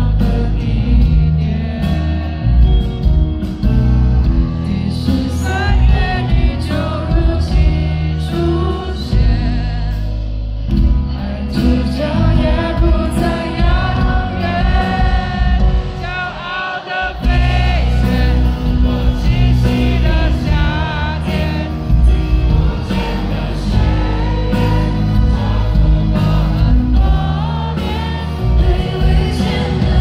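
Live pop song with a female lead singer and full band, heard over the PA of a large arena. The bass and band drop out briefly just past halfway, then come back in.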